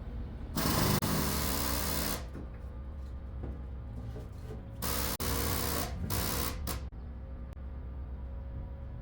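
Two bursts of a power tool running, the first about a second and a half long and the second about two seconds, over a low steady hum.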